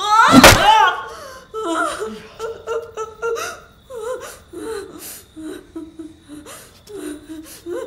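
A loud cry about half a second in, then a run of short, breathy vocal sounds with pauses between them, tagged as laughter, whimpering and panting.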